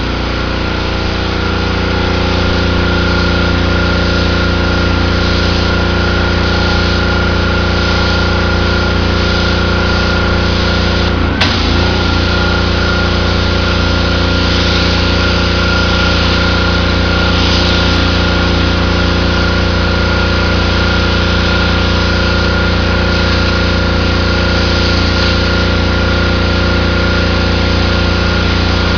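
Engine-driven pressure washer running steadily while the wand sprays water onto concrete paving, a hiss of spray over the engine's steady note. Its pitches settle in the first second or so, and there is one short click about eleven seconds in.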